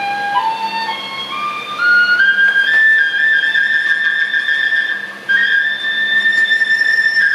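Flute playing a single melody that climbs step by step to a high note, then holds it for several seconds, with a short break about five seconds in.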